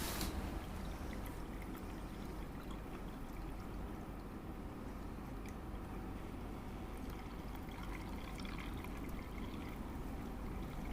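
Water pouring steadily into an earthen fountain basin as it is filled.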